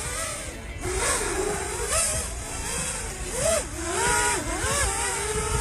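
FPV racing drone's motors whining in flight, the pitch swooping up and down again and again as the throttle changes.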